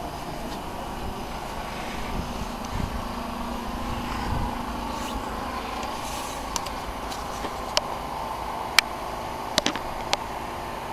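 Steady outdoor background noise with a low rumble and a faint hum, and a few short sharp clicks in the second half.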